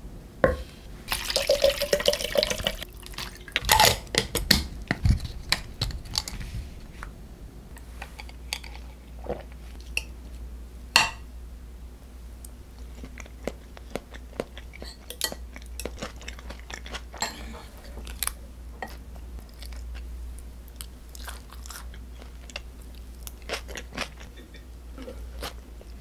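A metal ladle scrapes and spoons braised quail eggs and soy sauce onto a ceramic plate. This is followed by sparse clicks of metal chopsticks against plates and bowls, with quiet chewing as the food is eaten.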